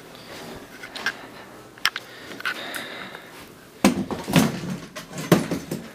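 Metal folding chair being carried and handled: scattered light clicks and knocks, then a run of louder thumps and clatters in the last two seconds as it is set down.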